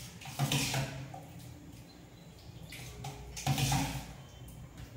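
A spoon stirring curd and vermicelli in a steel pot: two short bursts of wet stirring, near the start and about three and a half seconds in.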